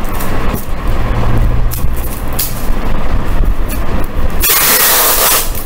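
Cardboard and tape being handled with scattered knocks over a steady low rumble, then about 4.5 s in a loud, one-second rip of adhesive tape being pulled off its roll.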